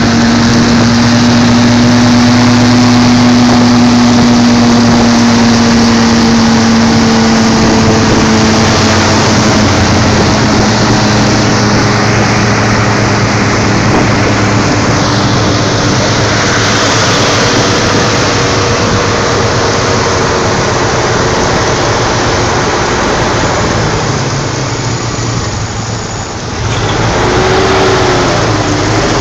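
Engine running steadily under the vehicle carrying the camera, its hum sinking slowly in pitch over a rushing noise. Near the end it briefly goes quieter, then picks up again with a short rise and fall in pitch.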